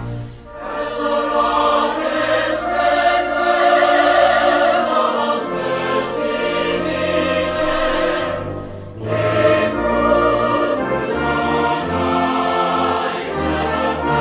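Orchestral music with operatic choir singing in long, swelling held notes, dipping briefly about half a second in and again near nine seconds.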